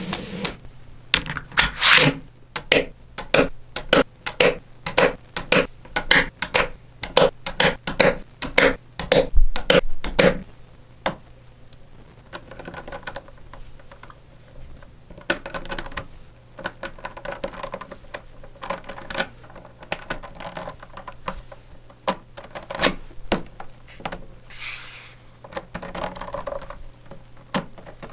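Small magnetic balls clicking and snapping against each other as they are placed and pushed into a model, with some rubbing and scraping between the clicks. The clicks come quickly for the first ten seconds or so, then more sparsely.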